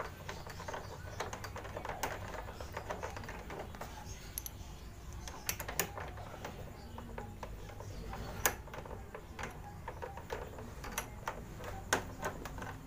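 Scattered small clicks and taps of a screwdriver and metal bolt being worked into a scooter's plastic fairing, a few sharper clicks standing out, as the bolt is screwed into a plastic wall plug fitted in its worn-out hole.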